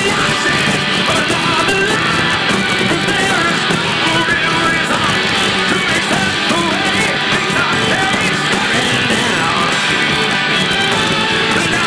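Live rock band playing loudly, with distorted electric guitars and drums, with faint singing, heard from within the audience.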